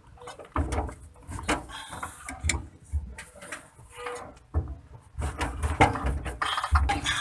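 Irregular knocks and clatter of hand tools on metal during work on a rear differential, strongest in the second half.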